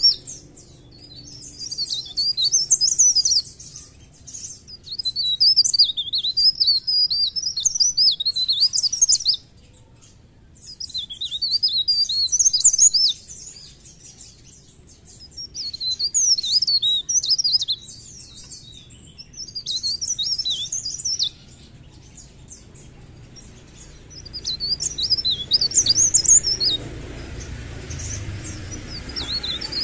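A blerengan (cikrak daun) songbird singing in full voice: about seven high-pitched phrases of rapid twittering notes, each a few seconds long, with short pauses between them.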